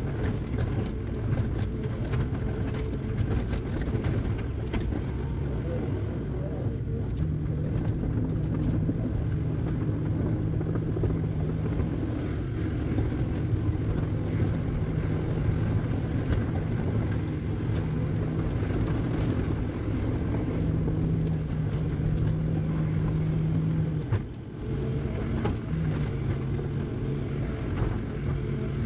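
Tracked excavator's diesel engine running under load, heard from inside the cab, its note rising a few seconds in and dipping briefly a few seconds before the end as the hydraulics work the arm. Scattered knocks and scrapes come from the bucket working soil and stone.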